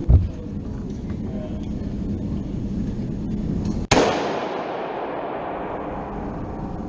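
Gunfire on a shooting range: a dull low thump right at the start, then a single sharp shot about four seconds in with a long echoing decay.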